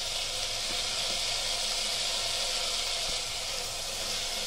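Broad beans, potato and freshly added tomato pieces sizzling steadily in hot oil in a cooking pot.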